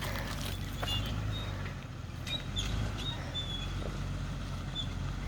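2001 Jeep TJ's engine idling steadily with a low hum, with a few short, high chirps scattered over it.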